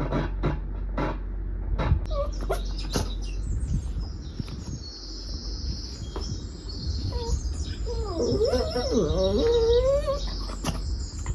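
Bird-like chirping with a high, steady trill under it, after a few sharp clicks at the start. A wavering, whine-like call rises and falls for a couple of seconds near the end.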